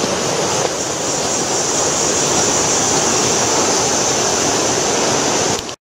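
Steady rush of a mountain river flowing through the gorge below the trail, cutting off suddenly near the end.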